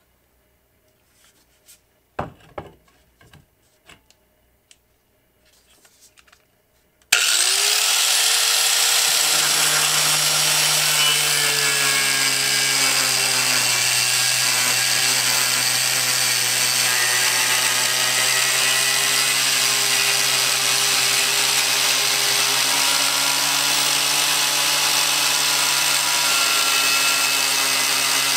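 A few knocks and clicks of handling, then about seven seconds in a Harbor Freight angle grinder with a cutoff wheel starts suddenly. It runs steadily, with a loud hissing grind as the wheel cuts through 3/16-inch steel along a guide.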